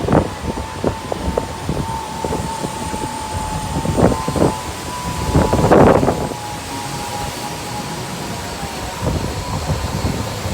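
Strong gusty wind of a desert sandstorm buffeting the microphone, in irregular blasts with the strongest gust just before the middle. A faint steady tone runs underneath for most of it.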